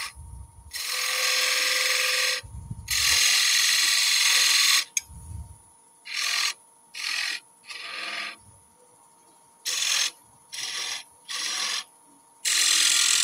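A turning tool cuts decorative grooves into the knob of a wooden lid spinning on a wood lathe. It makes a series of hissing cuts: two of about two seconds each in the first half, then several short touches under a second each, and another longer cut near the end. A faint steady whine sits underneath.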